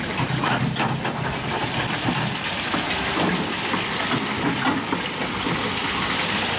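Halloumi cheese strips deep-frying in a commercial fryer, the hot oil sizzling and bubbling steadily, with a run of quick knife taps on a plastic cutting board in the first second.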